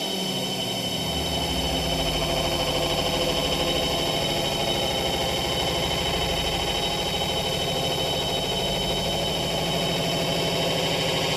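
Live electronic noise drone: many sustained tones layered into a dense, steady wall of sound with a high whine held above it. In the first second a low tone slides down in pitch and settles into a deep rumble.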